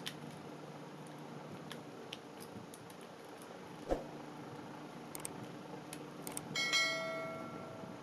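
Light plastic clicks as a toy RC car's battery pack is handled and fitted, with a single knock about four seconds in. Near the end, a few sharp clicks and then a bell ding that rings out and fades over about a second, a subscribe-button sound effect.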